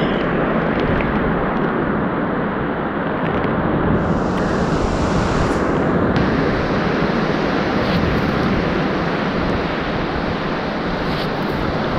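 Ocean surf washing steadily onto the beach, with wind buffeting the microphone; the hiss of the surf brightens for a couple of seconds about four seconds in.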